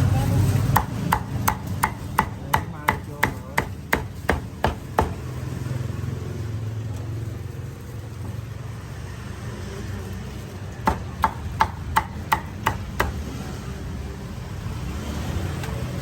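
Cleaver chopping roast pork: a run of about a dozen quick, even chops, then a pause, then about seven more near the end of the run, with steady traffic noise behind.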